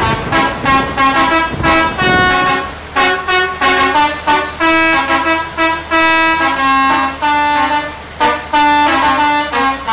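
Indonesian bus 'telolet' multi-tone musical horn playing a tune: a fast run of short notes of changing pitch, some held for about half a second, with a low steady hum underneath from about two seconds in.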